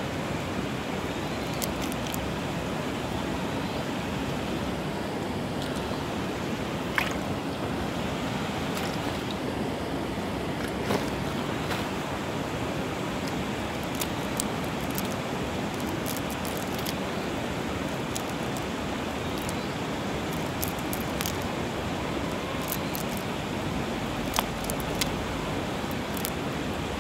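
Steady rushing outdoor noise with scattered light clicks and clinks as a cast net is handled and its sinkers knock together.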